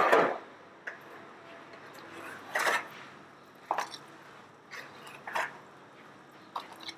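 A series of short, scattered rustles and clacks, about six over several seconds, with quiet room tone between them, as of things being handled at a counter.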